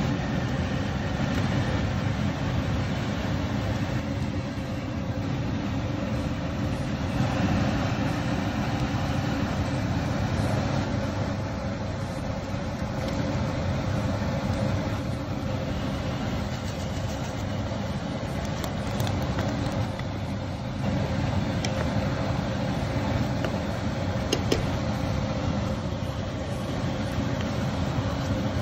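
A steady low rushing noise with no pauses, with a few light clicks in the second half.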